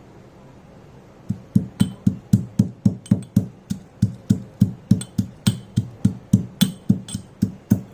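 Pestle pounding whole spices and a piece of ginger in a mortar, starting about a second in and going on in even strokes, roughly three or four a second: a light crushing of the spices, not grinding to powder.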